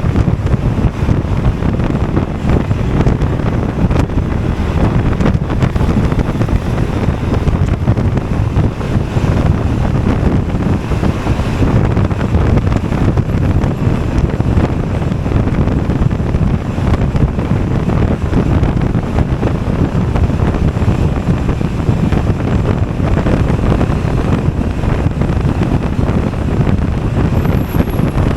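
Steady wind rushing over the microphone of a Honda Forza 250 scooter on the move, heaviest in the low end, with road and engine noise mixed underneath.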